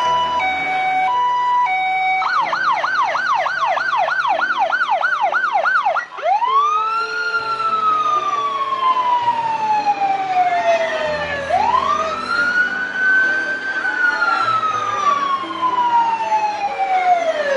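Fire engine siren. It alternates between two pitches at first, then switches to a rapid yelp for about four seconds, then gives two long wails that each rise quickly and fall slowly.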